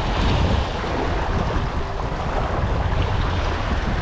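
Strong wind blowing across the microphone with a steady low rumble, over the wash of waves.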